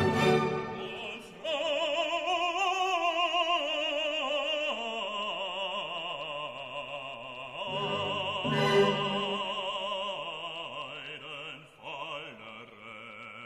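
Background music: an operatic solo voice singing long held notes with strong vibrato, in a few phrases, over classical accompaniment.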